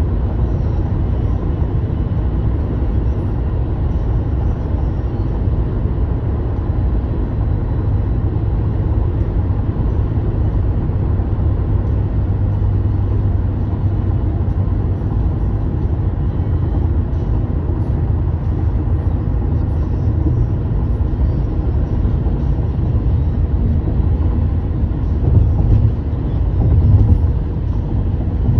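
Steady low rumble of a car driving on a highway, tyre and engine noise heard from inside the cabin, growing louder for a few seconds near the end.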